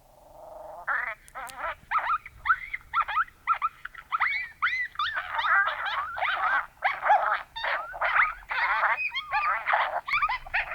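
Coyote yips, barks and howls played through an electronic predator caller. The chorus starts with a low wavering tone and builds into rapid, overlapping yipping and howling with quick rising and falling pitch.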